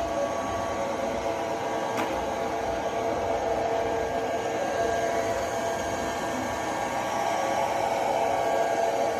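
Multilaser Hydra robot vacuum cleaner running: the steady whir of its suction fan with a hum, and a single sharp click about two seconds in.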